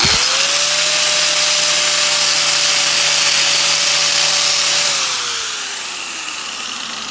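Angle grinder fitted with a wire wheel starting up and scrubbing slag off a fresh stick-weld bead: a steady whine with a scratchy hiss for about five seconds, then switched off, its pitch falling as it winds down.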